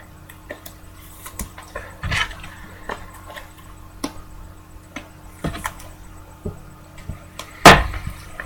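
Trading cards being handled and set down on a table: scattered light clicks and rustles, with one sharper knock near the end, over a faint steady hum.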